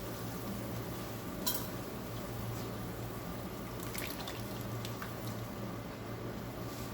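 A few light clicks of a utensil against a cooking pan over a steady low hum.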